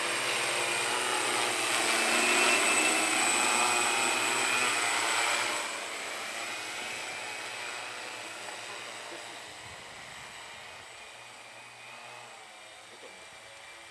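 enRoute Zion AC940 crop-spraying multicopter's rotors and motors whirring in flight, with a steady whine. The sound drops suddenly about six seconds in, then fades gradually as the drone draws away.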